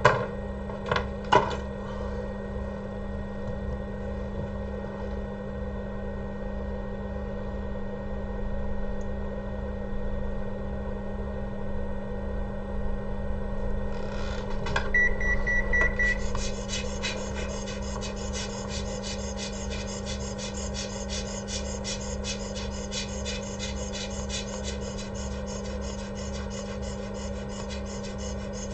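Hot air rework station blowing steadily over a steady electrical hum, with a few clicks at the start and a short electronic beep about fifteen seconds in.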